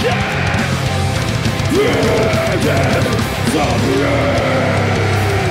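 Metal band playing live: distorted electric guitars, bass and drum kit, with a line that slides up and down in pitch through the middle.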